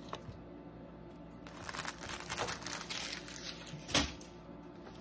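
Paper and plastic crinkling and rustling in the hands for a couple of seconds, with a single sharp tap near the end.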